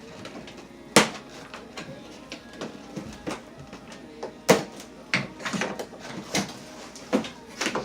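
Cardboard box and packaging being handled and opened by hand: irregular knocks, clicks and rustling, with the sharpest knocks about a second in and about four and a half seconds in.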